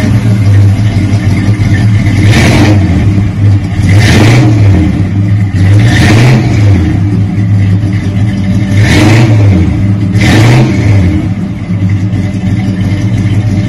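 A 1969 Plymouth Roadrunner's 383 big-block V8 idles through a new dual exhaust with Flowmaster two-chamber mufflers, an old school rumble. The throttle is blipped about five times, each rev rising and dropping back quickly.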